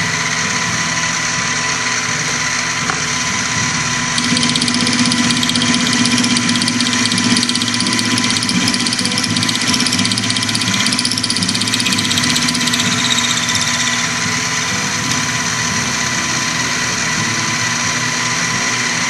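Small bench milling machine running with an end mill in the spindle, a steady motor drone and whine. From about 4 s to 14 s it grows louder with a harsher, grittier edge as the end mill cuts into the crank-disc blank clamped in the vise.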